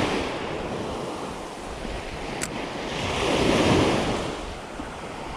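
Small surf waves breaking and washing up on a sandy beach, with wind on the microphone. One wave swells up and washes in about three to four seconds in.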